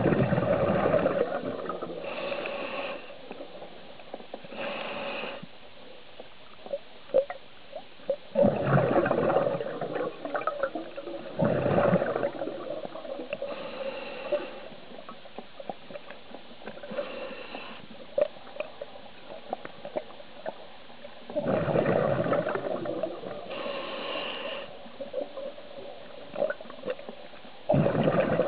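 Scuba diver breathing through a regulator underwater: five loud bursts of bubbling exhaust several seconds apart, with shorter, softer hissing inhalations between them.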